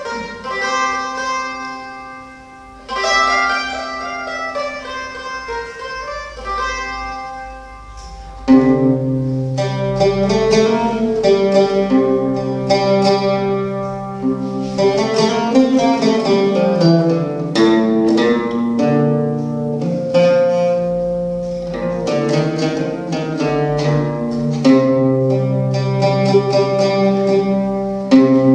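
Live acoustic folk music on plucked, round-backed lute-family instruments playing a slow melody. About eight and a half seconds in, the music gets suddenly louder as long, sustained low notes join under the plucked strings.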